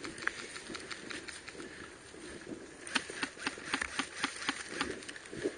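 Airsoft guns firing: a few sharp clicking shots at first, then a quicker, irregular run of shots from about three to five seconds in.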